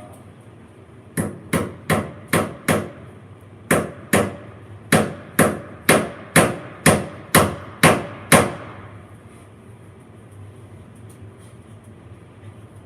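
Pliers used as a hammer, striking about fifteen sharp blows in three runs: five quick strikes, a short pause, two more, then eight at roughly two a second before stopping.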